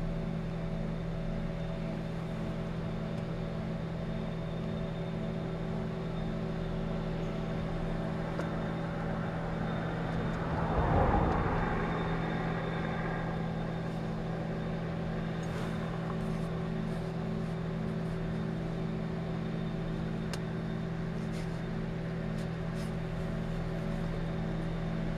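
Industrial plant's engines running at full power, giving a steady low hum with a slight regular throb. Partway through, a vehicle passes, rising and fading over a few seconds.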